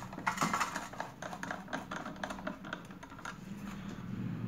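Light, rapid, irregular clicks and taps of a sandwich maker's metal heating plate and element being handled and seated by hand. The clicking thins out about three seconds in, leaving a faint steady background.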